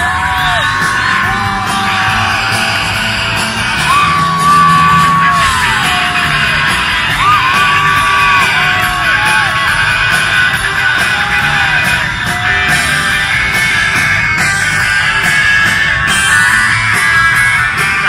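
Live rock band playing an instrumental break, an electric guitar lead holding and bending sustained notes over the band. The crowd close to the microphone yells and cheers over the music.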